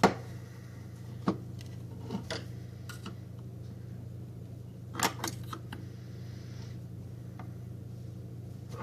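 Scattered sharp clicks and light scrapes of a thin screwdriver working at the seams of a plastic smart-plug case, the loudest at the very start and a small cluster about five seconds in, over a steady low hum.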